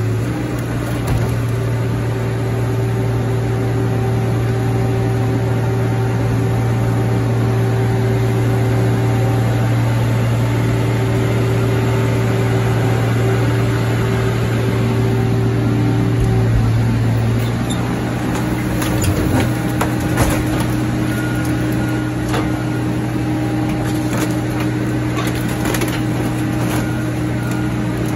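Heavy diesel machinery running with a steady low drone as a car crusher's lid lifts off a flattened car. About two-thirds of the way through, the drone changes pitch and scattered metal clanks and creaks come in as forklift forks set another car on top of the crushed one.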